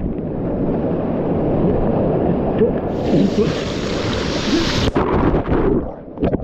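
Rushing whitewater of a river rapid, with wind buffeting the microphone. About three seconds in the rush turns brighter and hissier, then cuts off sharply near five seconds.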